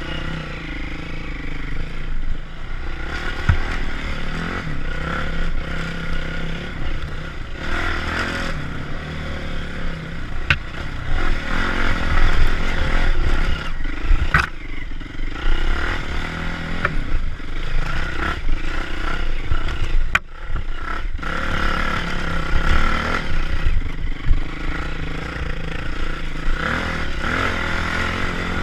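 Yamaha WR450F's single-cylinder four-stroke engine running as the bike is ridden along a dirt trail, the throttle rising and falling, with a brief let-off about two-thirds through. Scattered sharp knocks and scrapes sound over the engine.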